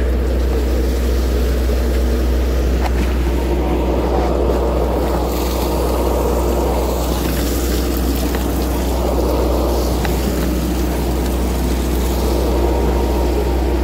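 Fishing trawler's engine running steadily with a deep drone. From about five seconds in until near the end, seawater splashes out of a deck washdown spout.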